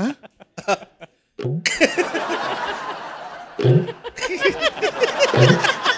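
Studio audience laughing, swelling in about a second and a half in, with louder bursts of laughter twice later on.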